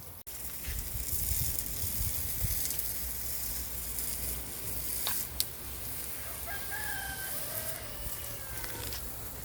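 A rooster crows once, one long call starting about two-thirds of the way in, over a steady hiss of water spraying from a garden hose.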